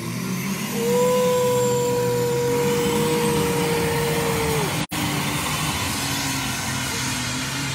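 Pulling tractor's engine running hard at full throttle as it drags the weight sled, with a steady high whine over it for about four seconds. There is a brief cut-out of the sound about five seconds in.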